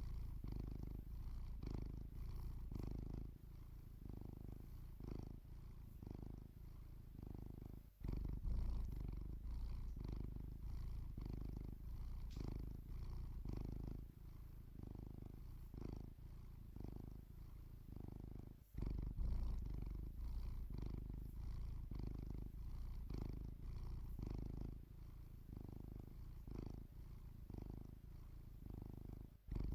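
Domestic cat purring while asleep, a low rumble that swells and eases with each breath. It breaks off briefly twice.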